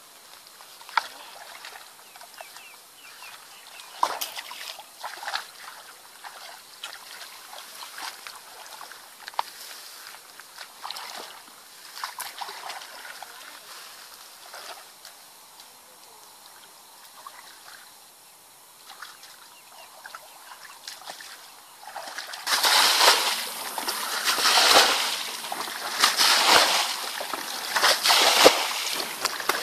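Feet wading through a shallow muddy ditch with small sloshes and splashes. About three quarters of the way in, loud repeated splashes begin, one every second or two, as water is bailed out of the ditch with buckets and dumped onto the bank.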